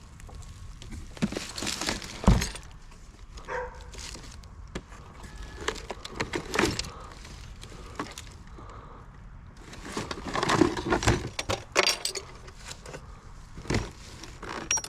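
Hard junk being handled and dropped: several bursts of clattering, knocking and clinking. The sharpest knock is about two seconds in, and a longer rattle comes around ten to twelve seconds in.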